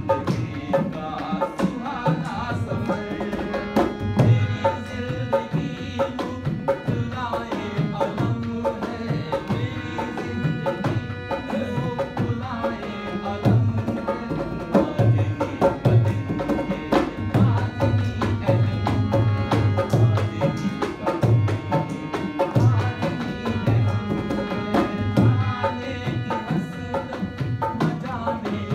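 Harmonium and a two-headed barrel hand drum playing Indian folk music together: sustained reedy harmonium chords over a steady rhythm of deep bass strokes and sharp slaps on the drum.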